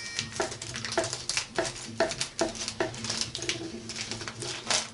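Scissors snipping through a plastic tortilla bag, with the packaging crinkling; sharp clicks come at an uneven pace, two or three a second. The scissors struggle with the plastic.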